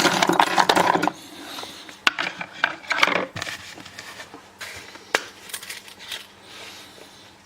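Dimple lock picks clattering out of their case onto a hard surface: a dense jangle of metal for about the first second, then scattered clinks and clicks as the picks are moved and sorted by hand.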